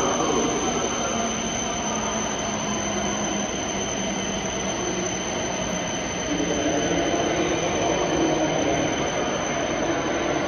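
Steady hum and high-pitched whine of a 521 series electric train standing at the platform, its auxiliary power equipment and cooling fans running, with a slight swell in the noise about six seconds in.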